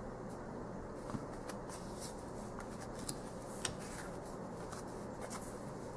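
Tarot cards being handled and laid down on a cloth-covered table: a few soft clicks and taps of the card stock over steady, faint room noise.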